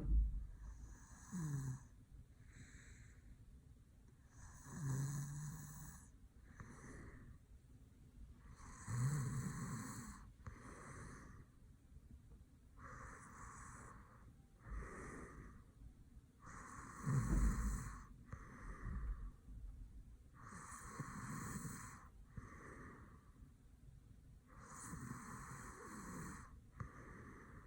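A sleeping man snoring in a slow, even rhythm, one breath about every four seconds, each a low rough snore with a hiss of breath.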